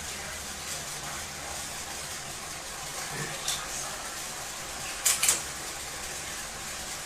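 Steady hiss of room noise, with a faint tap a little past three seconds and two sharp clicks in quick succession about five seconds in.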